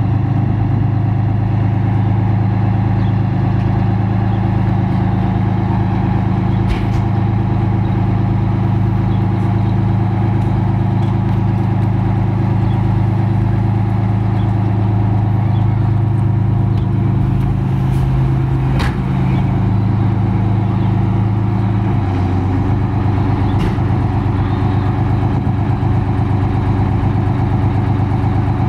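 Detroit Diesel 6V92 two-stroke V6 diesel of a 1988 Seagrave fire engine idling steadily, with a slight shift in pitch about two-thirds of the way through and a few brief clicks.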